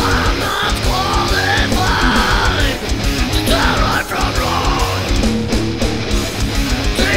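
Heavy metal music from a band recording: guitars over fast, dense drumming, with rapid bass-drum beats.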